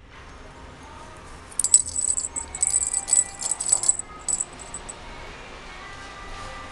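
A jingling toy, like a bell rattle, shaken in quick bursts from about one and a half seconds in until about five seconds in, loudest near the middle.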